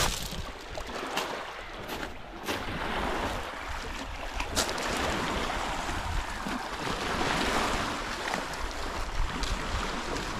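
Gentle sea waves washing against a rocky, pebbly shore, with wind buffeting the microphone and a few sharp clicks of footsteps on gravel and stone.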